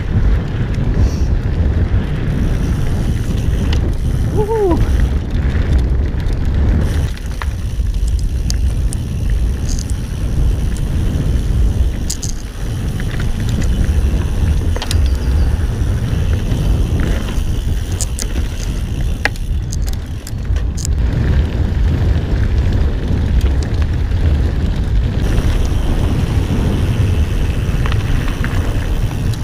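Wind buffeting the microphone and tyres rolling over a dirt trail while riding a Ghost Riot mountain bike, with scattered sharp clicks and rattles from the bike over bumps. A brief rising squeak comes about four seconds in.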